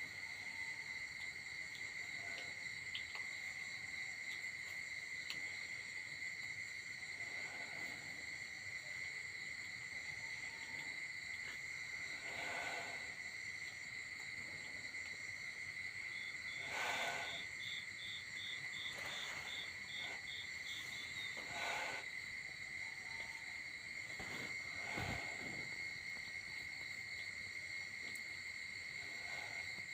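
Steady insect chorus, a cricket-like trilling, running throughout, with a few brief louder sounds over it.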